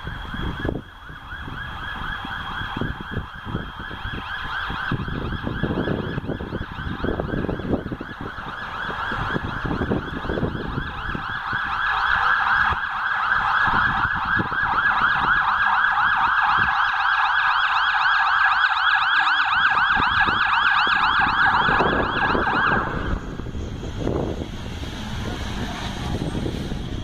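Fire truck siren in a fast warble, growing louder as the aerial ladder truck approaches, then cutting off a few seconds before the end. The truck's engine rumbles as it drives past near the end.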